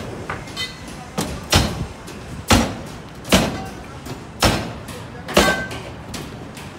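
Sharp knocks about once a second, six in all, the last with a brief metallic ring, over steady construction-site background noise.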